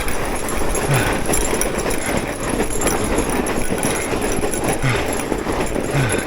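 Fat bike rolling over rough, uneven trail, with a steady clatter of wide tyres over bumps and the drivetrain and frame rattling.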